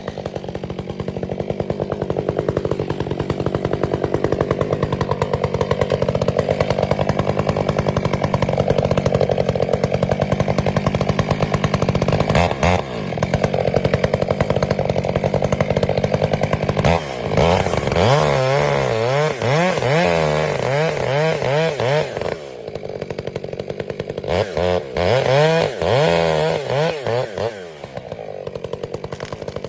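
Two-stroke chainsaw cutting into a tree being felled, running steadily under load for about twelve seconds, then revved up and down repeatedly in the second half, its pitch rising and falling.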